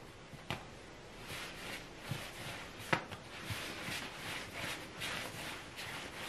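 Palms rolling a rope of bread dough back and forth on a wooden tabletop: repeated soft swishing of skin and dough on the wood, about two strokes a second, with a couple of sharp taps on the table.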